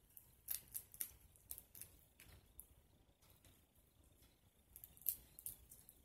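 Boiled crawfish shells cracking and crackling as they are peeled apart by hand: a run of sharp, irregular clicks in small clusters, the loudest about five seconds in.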